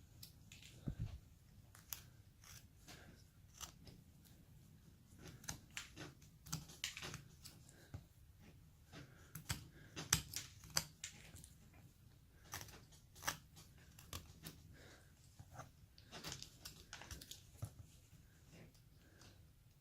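Faint hand-carving cuts into basswood: a knife or chisel shaving the wood in short, irregular snicks and scrapes.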